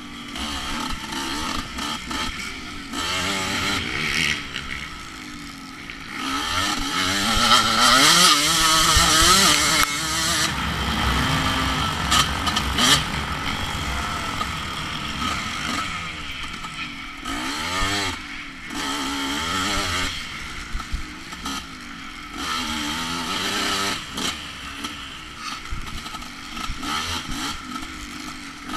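Off-road dirt bike engine ridden through the gears, its pitch rising and falling again and again with the throttle; loudest about six to ten seconds in.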